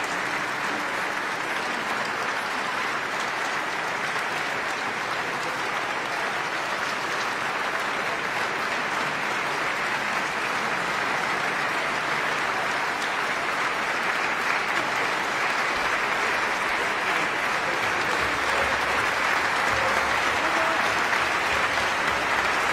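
A large audience applauding steadily, growing a little louder in the last third.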